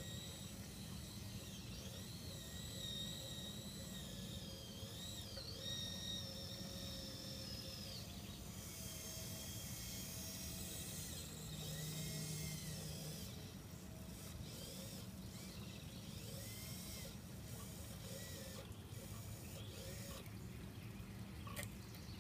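Small electric motors and gears of a radio-controlled model crawler crane whining as it hoists its grab bucket of sand and swings the boom, the whine rising and falling in pitch.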